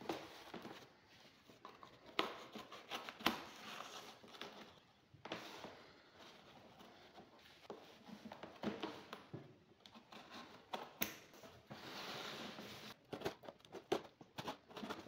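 Packing tape and cardboard being torn and peeled off a large parcel by hand: irregular rips, crackles and sharp clicks, with a longer rip about twelve seconds in.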